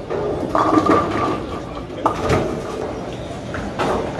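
Bowling alley noise: balls rolling down the lanes and pins being struck, with a few sharp knocks about two seconds in and again near the end.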